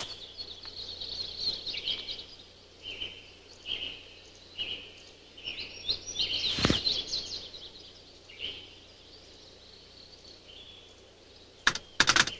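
Birdsong ambience: many short, high chirps. A sharp click comes about two-thirds of the way in, and a quick run of clicks near the end.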